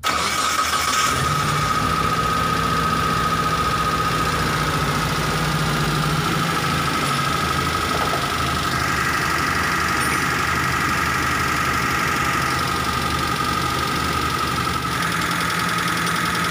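Suzuki Carry T120SS fuel-injected engine idling steadily on a test run after its dented oil pan has been straightened, so that the oil pump pickup no longer sits against the pan. The flute-like whistle it used to make is reported gone.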